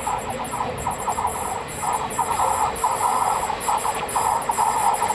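Steel wheels of a freight train of tank wagons squealing against the rails on a curve: a shrill, wavering squeal that flickers on and off in quick pulses over the low rumble of the rolling wagons.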